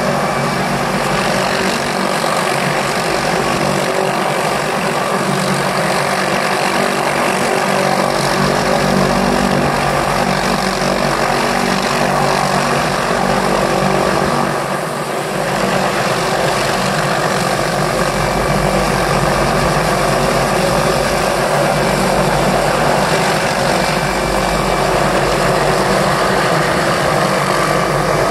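Light turbine helicopter hovering close by with a long line slung below, its rotor and turbine running steadily, with a faint high whine at times and a short dip in loudness about halfway through.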